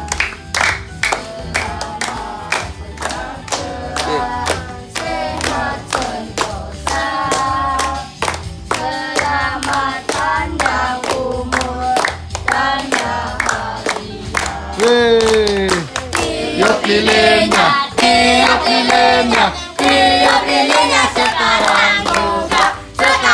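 A group of people singing a birthday song together, clapping their hands in time at about two to three claps a second.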